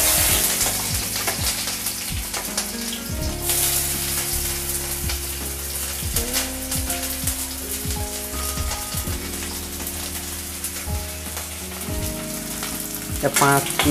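Chopped onions frying in hot oil in a kadai, a steady sizzle that grows louder about three and a half seconds in, with a few clicks.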